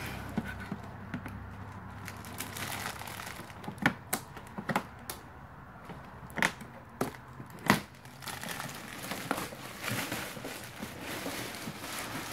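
Scissors cutting through clear plastic wrap, the plastic crinkling and rustling, with several sharp irregular snips and clicks in the middle.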